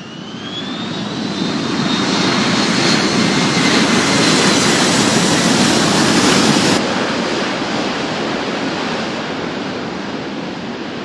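Jet aircraft engine roar with a faint high whine, building over several seconds and then slowly easing. The hiss at the top drops away abruptly about seven seconds in.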